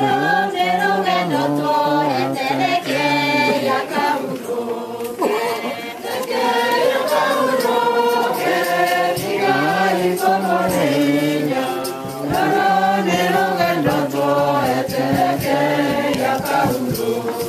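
A congregation singing a hymn together, many voices on held notes. The singing starts loudly all at once.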